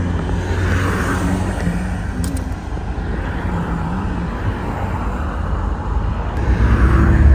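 Car driving along, a steady low rumble of engine and road noise that grows a little louder near the end.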